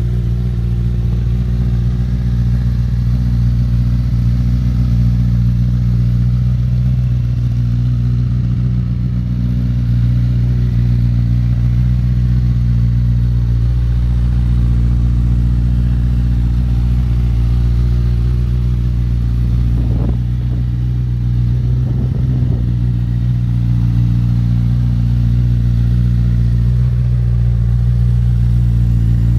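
Honda CBR1000RR Fireblade's inline four-cylinder engine idling steadily through a Scorpion aftermarket exhaust.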